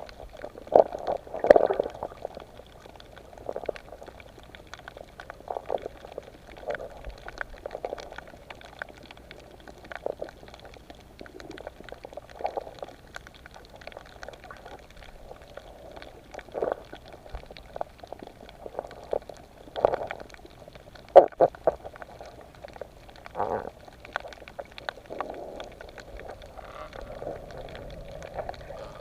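Muffled underwater bubbling and gurgling in irregular bursts every second or two, with small clicks.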